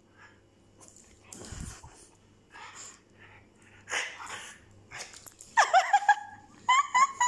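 French bulldog's short noisy breaths and huffs while it leaps at a toy. In the second half come loud, quick, high-pitched squeaks, some gliding down in pitch, as the dog bites a plush squeaky toy.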